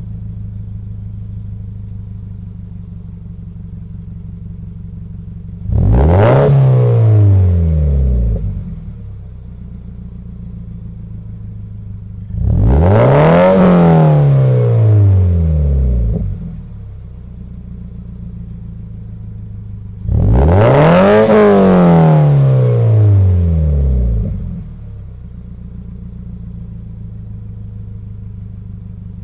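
Warmed-up Subaru BRZ flat-four engine idling through an FT86SpeedFactory V1 resonated cat-back exhaust, revved three times about seven seconds apart. Each rev climbs quickly, holds for about two seconds, then falls back to a steady idle.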